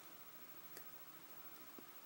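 Near silence with two faint, short clicks about a second apart, from small parts of a lock cylinder being handled as pins are worked out of the core.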